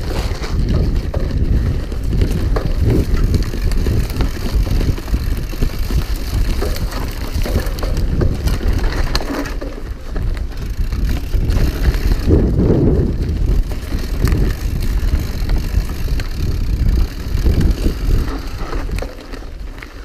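Cross-country mountain bike riding fast down a rough dirt trail: a steady low rumble of tyres on the ground, with the bike rattling over bumps and wind buffeting the microphone.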